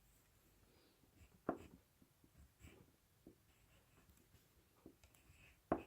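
Crayon writing on paper: faint, scattered scratching strokes, with a soft knock about a second and a half in and another near the end.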